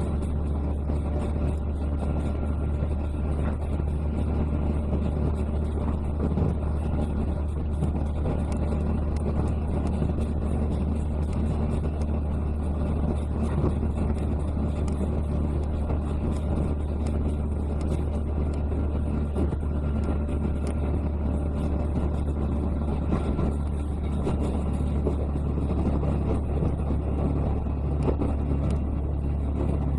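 Steady running noise of a diesel railcar heard from inside the carriage, dominated by a low, even engine drone.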